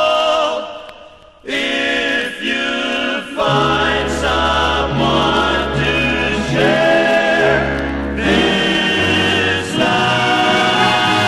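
A 1950s male vocal group sings wordless close harmony over orchestral backing. The music fades almost away in the first second, then a new passage comes in strongly about a second and a half in.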